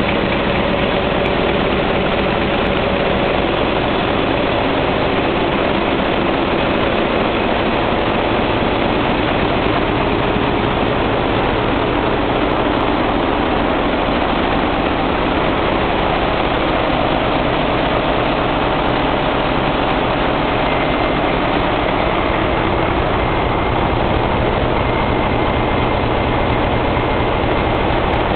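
Large diesel generator engines running in a ship's engine room: a loud, steady, unbroken machinery din.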